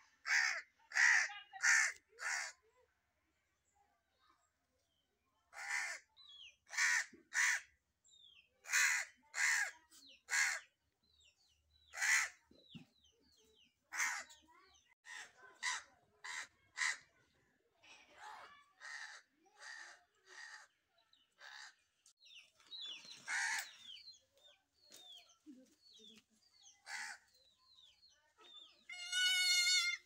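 Crow cawing: harsh, short caws in loose bursts of two to five, with a pause of a few seconds early on. Near the end comes a single longer call with a wavering pitch.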